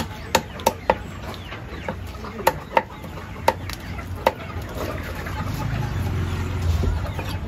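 Short sharp sounds, about eight in the first four and a half seconds, over a low steady rumble of background noise that swells in the second half.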